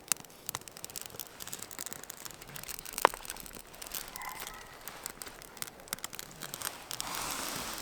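Small campfire of split dry wood crackling as it catches, with scattered pops and one sharp snap about three seconds in.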